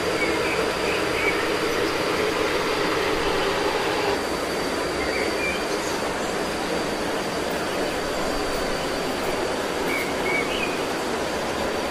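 Steady rushing outdoor noise with a thin, high, constant whine over it, and a few short bird-like chirps near the start, about five seconds in and again about ten seconds in.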